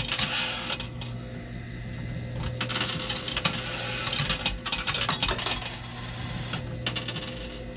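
Quarters clinking and clattering in a coin pusher arcade machine, in clusters of sharp metallic clicks as coins drop and are shoved across the playfield, over a steady low hum.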